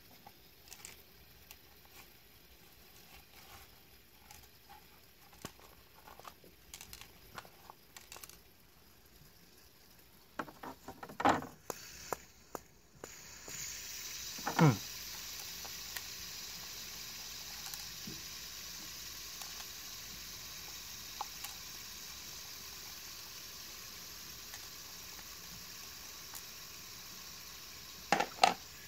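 Fidget spinner handled between the fingers: light clicks and rubbing, then about halfway through a steady hissing whir of the spinning bearing starts and slowly fades. Just after it starts comes one sharp, loud swish falling in pitch, and there are two clicks near the end.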